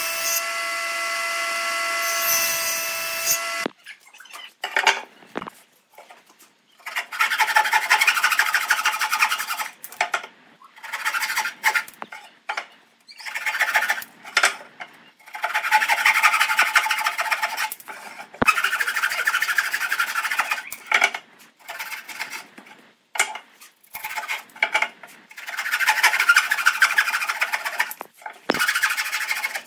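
A power tool runs with a steady whine, then cuts off suddenly a few seconds in. Hand or tool strokes on wood follow: repeated rasping, scraping passages a second or two long, with short pauses between them.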